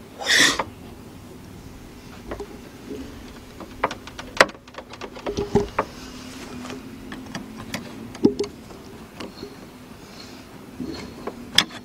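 Scattered clicks and knocks of tools and parts being handled while refitting a convertible top hydraulic piston, with the sharpest clicks about four, eight and eleven and a half seconds in, over a faint steady hum.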